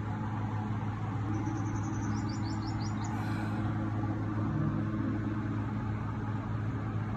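Toyota Corolla GLi engine idling with a steady hum. A bird chirps a few times over it a second or two in.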